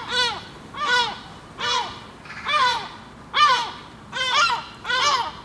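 Several unseen birds giving repeated alarm calls while mobbing a perched Harris's hawk: short calls that rise and fall in pitch, more than one a second, some overlapping.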